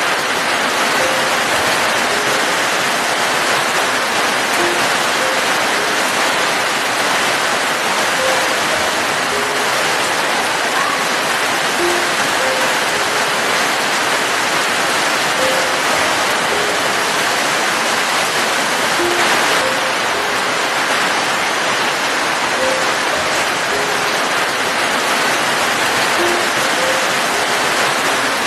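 Steady rain falling, an even hiss that does not let up. Soft, sparse single notes of music sound over it, about one a second.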